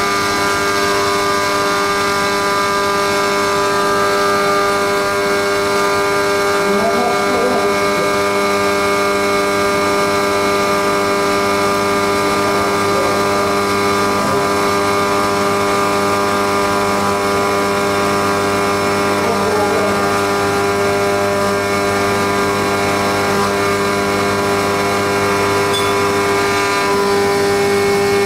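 Haas CNC milling machine cutting a cam on a fourth-axis indexer: a steady machine whine made of several constant tones, with faint wavering cutting sounds around the middle.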